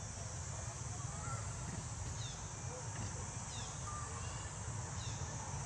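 Steady outdoor background with a low rumble and a high hiss, with a few short, high chirps that fall in pitch, spaced about a second and a half apart from about two seconds in.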